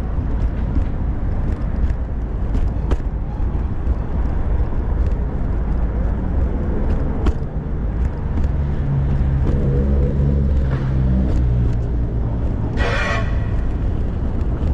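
Steady low rumble of city street traffic heard from inside a rolling pet stroller, with scattered small clicks and knocks. A vehicle's engine hums by about nine seconds in, and a short car-horn toot sounds near the end.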